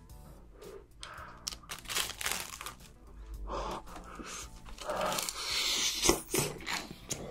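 Close-miked crunching as a crumb-coated fried corn dog is bitten and chewed: a run of crisp crackles from the fried coating, starting about a second in and loudest near the end.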